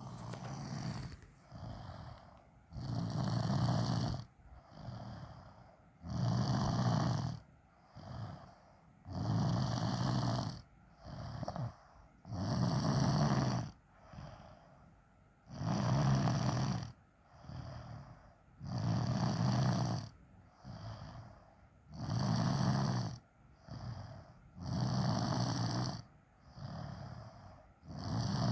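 Snoring in sleep: a loud snore about every three seconds, each lasting about a second, with a softer breath between snores.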